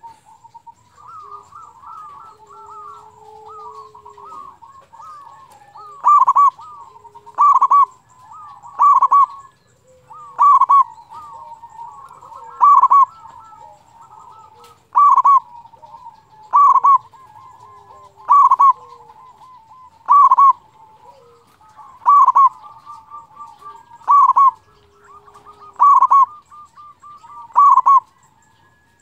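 Zebra dove (perkutut) singing. A soft, rapid stutter of cooing notes comes first. From about six seconds in, a loud ringing 'kung' note repeats every one and a half to two seconds, each led by a quick run of stuttering notes.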